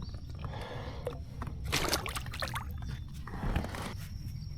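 Water trickling and sloshing beside a kayak, with two short splashes: one just before two seconds in and another about a second and a half later.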